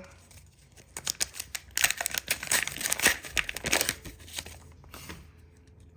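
Wrapper of an AFL Teamcoach trading card pack being torn open and crinkled: a run of sharp crackles, loudest in the middle, dying away about a second before the end.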